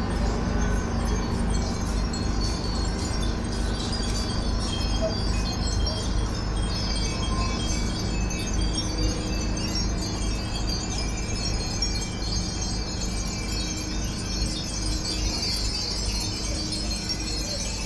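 Many Japanese furin wind bells tinkling together in the breeze, a constant scatter of high ringing tones over a steady low rumble.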